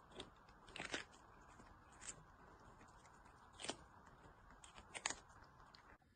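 A kitten biting and chewing a piece of raw cucumber: faint, sharp crunches every second or so over a steady hiss.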